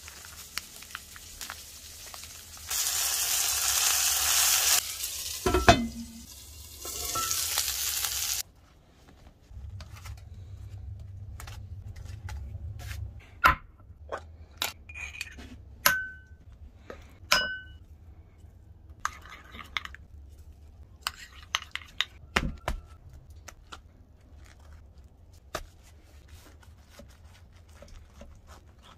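A burger frying in a pan on a wood stove, sizzling steadily, loudest a few seconds in, for the first eight or so seconds. After a sudden cut come scattered light clicks and clinks of food, a glass mug and a knife being handled.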